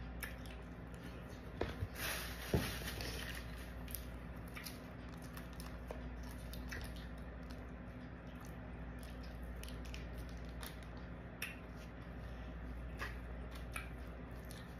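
Close-up eating sounds: chewing, with small clicks and scrapes of a plastic fork in a styrofoam takeout container, over a steady low hum. A brief louder rustle with a couple of knocks comes about two seconds in.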